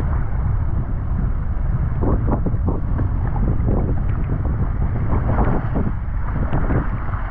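Wind rumbling and buffeting on the microphone, with scattered short bursts of background noise over it from about two seconds in.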